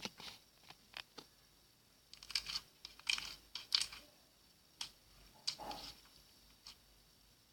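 Slime being squeezed and worked by hand, giving irregular clusters of short, sticky clicks and crackles.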